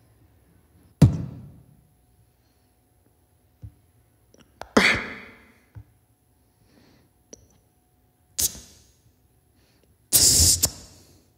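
Beatboxer's mouth sound effects into a microphone, one at a time a few seconds apart for a dancer to move to. A sharp hit with a low boom comes about a second in, a hissing sweep near five seconds, a short burst near eight and a half, and a louder, longer noisy burst near the end, each fading quickly.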